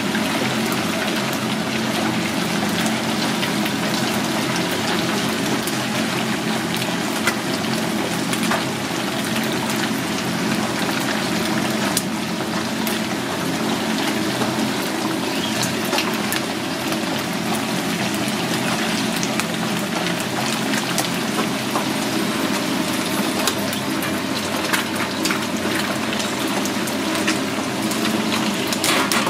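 Battered loach deep-frying in a tray of hot oil, sizzling steadily with a dense crackle of small pops throughout.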